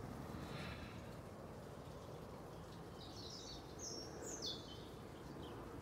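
Faint birdsong: a few short, high chirps about three to five seconds in, over quiet outdoor background noise.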